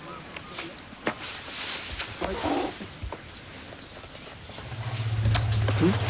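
Steady high-pitched insect chorus, with scattered faint clicks and rustles. A low hum comes in about five seconds in.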